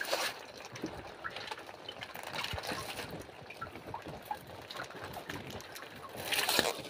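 Water sloshing and dripping with small clicks and rustles as hands grab wet spiny lobsters out of a netting cage, with a louder rush of noise about six seconds in.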